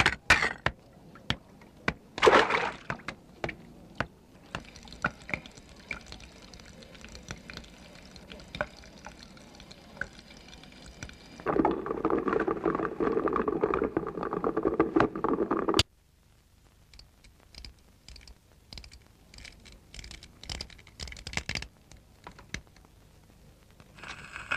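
Water running from a bathroom tap: a faint hiss, then louder pouring for about four seconds that stops abruptly. Scattered clicks and knocks come before and after.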